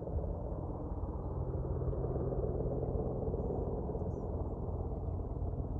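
Boeing AH-64 Apache attack helicopter flying at a distance, its twin turboshaft engines and rotor making a steady low rumble that grows slightly louder after the first second.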